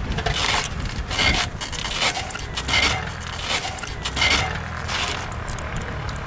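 Replica Fokker D.VII biplane's engine running as a low, steady drone while the plane rolls across the grass. Over it comes a series of scraping, rubbing noises close to the microphone, roughly one every half second, which die away after about five seconds.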